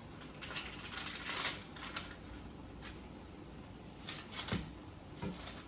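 Light kitchen handling noises: a few short scrapes and small clicks as hot roasted squash halves are moved about on a baking pan.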